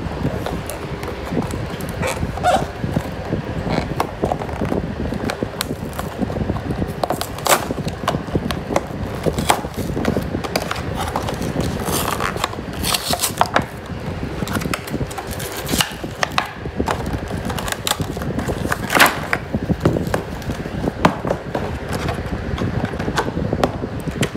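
A cardboard retail box being torn open and its plastic insert handled: irregular crinkles, rips and knocks over a steady low background hum.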